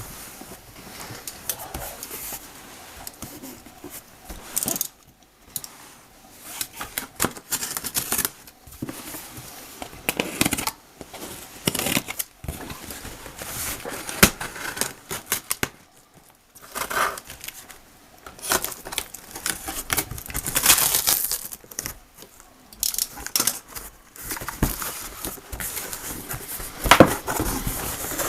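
Packaging being handled and unpacked by hand: irregular rustling and crinkling with scattered clicks and knocks, and a few louder tearing or rustling spells.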